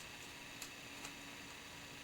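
Faint steady room hum and hiss with two soft clicks about half a second apart, small handling sounds at a paper-crafting table.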